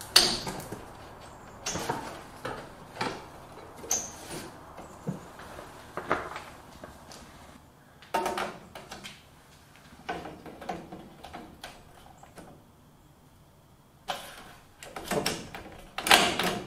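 LED tubes being fitted into a sheet-metal fluorescent shop-light fixture: scattered clicks, knocks and scrapes as the tubes are handled and seated in the end sockets, quieter for a few seconds in the middle, then a run of clattering near the end.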